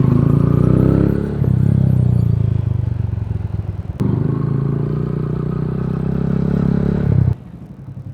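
Yamaha YBR125G motorcycle's single-cylinder engine running under way, its pitch shifting with throttle and gear changes. There is a sharp click about four seconds in, and the sound drops off abruptly about seven seconds in.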